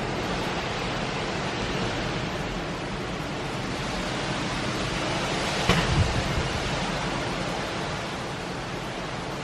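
Steady rushing noise of hurricane wind and rain, with a few brief low thumps about six seconds in.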